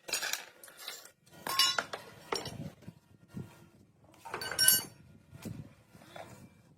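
Metal parts and tools clinking and clattering in a few separate handfuls, each with a short metallic ring; the loudest comes a little past halfway.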